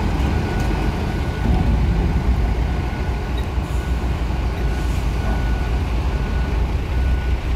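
Diesel engine of a Damri bus on a Mercedes-Benz 1626 chassis, running with a steady low rumble as the bus drives slowly up the ramp into a ferry's vehicle deck. A faint high whine comes and goes over it.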